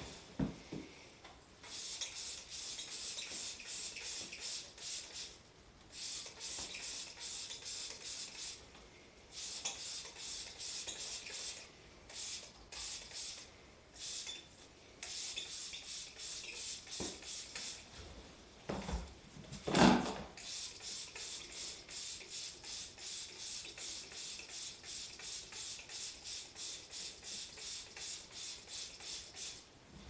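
Brisk scrubbing strokes on a wall-mounted air conditioner during cleaning, about three or four a second, in runs with short pauses between them. One louder knock comes about two-thirds of the way through.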